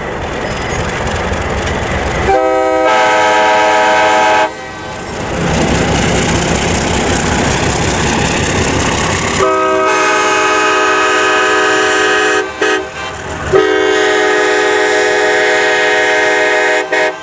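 Leslie K-5LA five-chime air horn sounding its chord in long blasts: one of about two seconds, then a longer one that breaks off briefly partway and carries on nearly to the end. A steady rushing noise fills the gaps between blasts.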